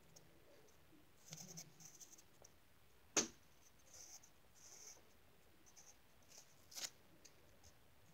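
Pencil scratching faintly on lined notebook paper in short strokes, with two sharp clicks, the louder one about three seconds in and another near seven seconds.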